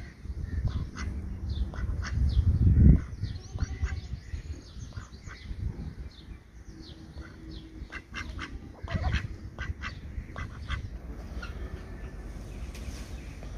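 Ducks calling with many short, separate quacks. A loud low rumble of wind on the microphone runs under the first three seconds.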